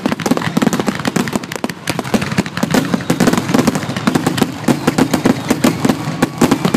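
Aerial fireworks bursting in rapid succession: a dense, unbroken run of sharp pops and bangs, many a second, with crackling.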